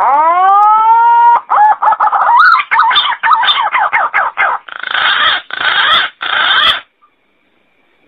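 Green pigeon (punai) call: a loud rising whistled note, then a run of warbling, wavering whistles and three harsher notes, stopping abruptly about seven seconds in.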